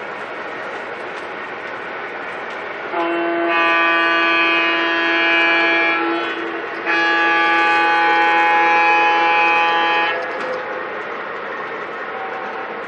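Model freight train rolling along the layout's track with a steady rumble. About three seconds in, the model locomotive's sound system sounds a diesel-style horn in two long blasts of about three seconds each, with a short break between them.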